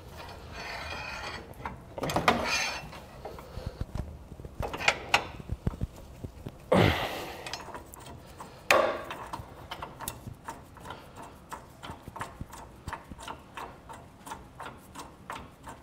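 A hammer knocking a long tow-hook bolt down out of a Ram 1500's frame. There are a few scraping sounds early, then many light, quick metal taps through the second half.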